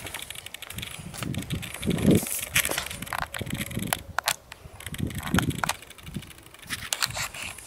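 Wind buffeting the microphone in irregular gusts, with scattered crackles and clicks.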